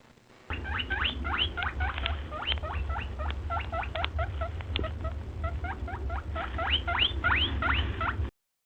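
A small animal squeaking over and over: a quick run of short, high squeaks that sweep upward in pitch, several a second, over a low rumble. It cuts off suddenly near the end.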